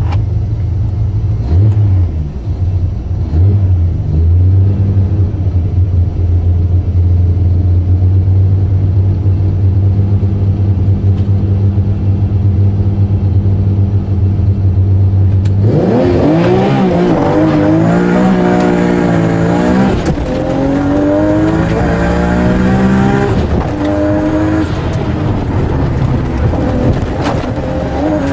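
Nissan Skyline's engine heard from inside the cabin, running steadily while the car waits at the start line, with a few short blips of throttle. About halfway through, the car launches, and the engine revs climb and drop again and again as it accelerates hard through several upshifts.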